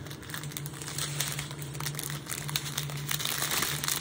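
Thin plastic bags of diamond-painting drills crinkling as a strip of them is handled and shifted, a continuous run of small irregular crackles.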